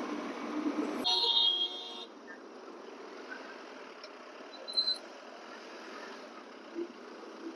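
Road traffic with a vehicle horn honking for about a second, about a second in, after a loud rushing noise; then quieter road noise with a short high beep near the middle.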